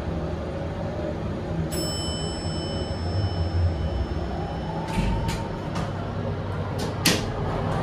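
Heights glass elevator car running with a steady low hum. Under two seconds in, a high electronic tone sounds for about three seconds. From about five seconds in come several sharp clicks and one loud clunk, as the car arrives and its door begins to open.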